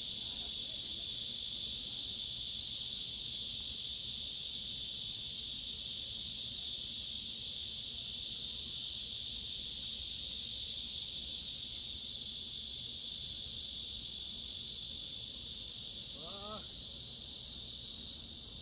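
Cicadas shrilling: a steady, dense high-pitched buzz with no breaks or pulses. A faint short warbling sound comes in about sixteen seconds in.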